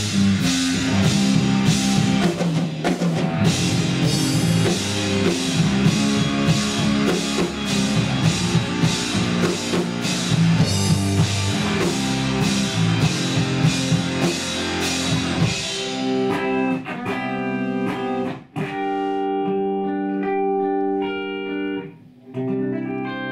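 Rock band playing together: drum kit, electric bass and electric guitar. About fifteen seconds in, the drums and bass stop and the electric guitar carries on alone with ringing chords, broken by two short pauses.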